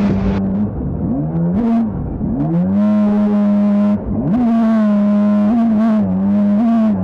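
A small boat's motor running under throttle, its pitch stepping up and down as the throttle is opened and eased off, and briefly dropping out about half a second, two and a half seconds and four seconds in.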